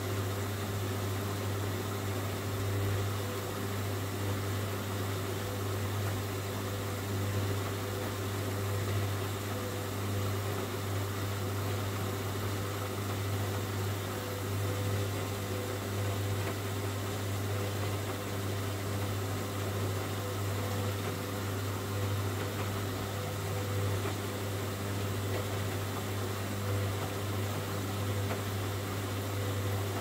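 Hoover front-loading washing machine turning its drum slowly with a wet load of towels: a steady low motor hum that rises and falls slightly about every two seconds. This is the suds-lock stage of a cotton 90 °C wash, after the machine has detected excess suds following the first deep rinse.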